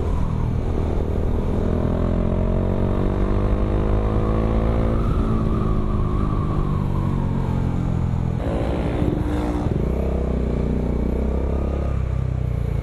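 Bajaj Dominar 400's single-cylinder engine running through an Akrapovic M1 slip-on exhaust while riding. The pitch climbs steadily under acceleration, eases off, then climbs again from a lower note about eight seconds in, as after a gear change.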